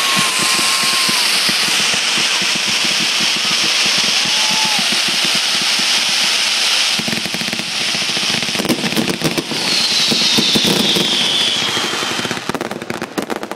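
Fireworks spraying sparks with a steady hiss and dense crackling. About seven seconds in the crackle turns heavier and fuller, a single whistle falls in pitch a few seconds later, and separate sharp pops follow near the end.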